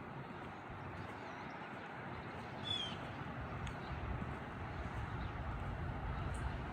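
Outdoor ambience: a steady low rumble with a few bird chirps over it, the clearest a short falling whistle about two and a half seconds in.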